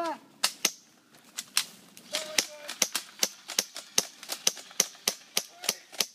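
Mock gunfire in a staged firefight: a rapid string of sharp, light gunshot pops, sparse at first and then about four a second from about three seconds in.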